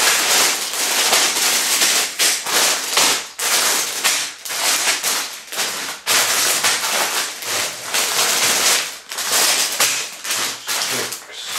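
Clear plastic bags full of Lego pieces crinkling and rustling as they are picked up, shuffled and set down, a dense irregular crackle that rises and falls with the handling.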